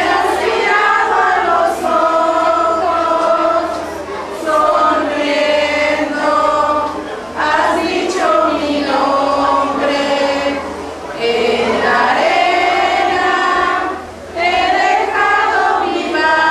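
A congregation of mostly women's voices singing a Spanish Catholic hymn together, in long held phrases with brief pauses between them.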